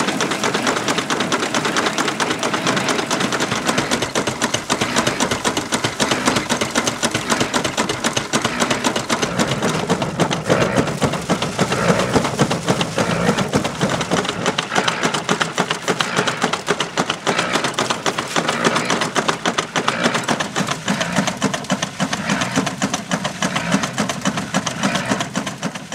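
Small wooden threshing machine, driven by an animal-powered horse gin, running with a fast, even rattling clatter as wheat is threshed through it.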